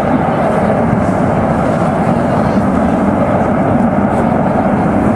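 Burning gas pipeline: a steady, even roar like a jet aircraft, from gas burning as it escapes from the ruptured pipe.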